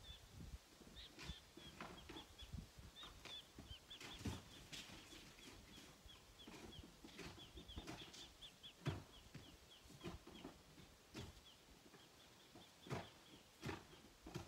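Faint, rapid high chirps from a bird, several a second and each hooking downward in pitch, with scattered short knocks and clicks.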